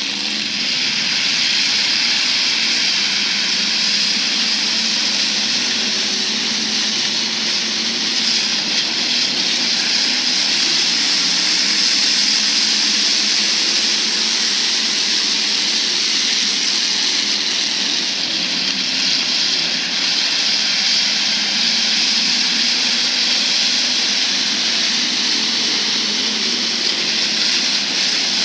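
A field of IMCA Hobby Stock race cars running on a dirt oval: several engines under throttle merge into one steady, loud roar that holds without a break.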